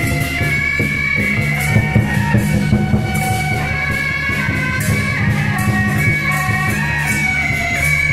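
Temple procession music: a reedy wind instrument holds a high melody over steady drum and cymbal beats.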